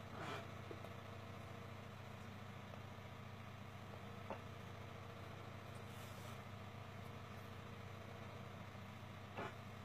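A steady low background hum, with a few brief soft taps: one right at the start, one near the middle and one near the end.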